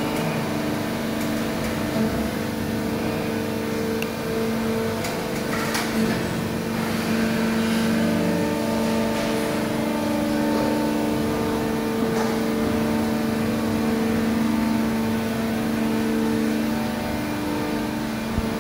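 Injection moulding machine running: a steady mechanical hum of several held tones over a rushing background, with a few short sharp clicks or knocks along the way.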